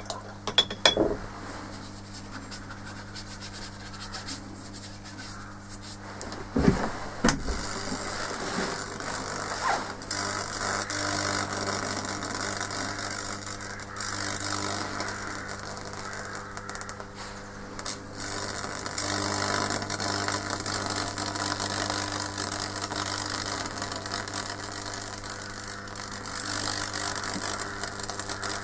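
High-voltage transformer humming steadily while an electrode arcs into a wooden bowl, burning fractal (Lichtenberg) patterns, with the electrical discharge crackling and sizzling louder from about eight seconds in. A few sharp knocks come in the first seconds and again about seven seconds in.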